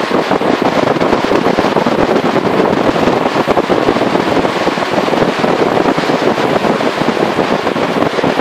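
Loud wind rush on the microphone of a camera carried at speed on a mountain-bike road descent, mixed with a dense run of small knocks and rattles.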